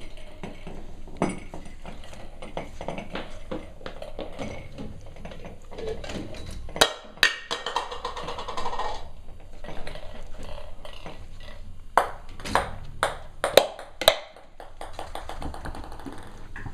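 Cavalier King Charles spaniel puppies playing with toys: scattered knocks and sharp clinks, with two loud strikes near the middle and a quick run of them about twelve to fourteen seconds in.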